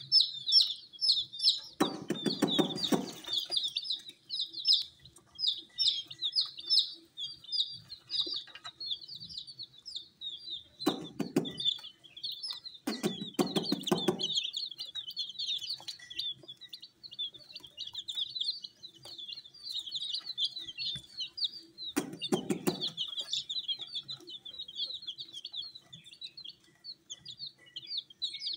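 A flock of baby chicks peeping constantly, many high-pitched cheeps overlapping. Four times a short, lower, rougher burst of sound breaks in, about two seconds in, twice near the middle and once past the two-thirds mark.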